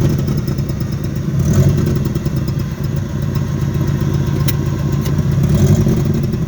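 Chevrolet Opala Diplomata engine running at idle with a deep rumble, pulling the car up a slope without throttle.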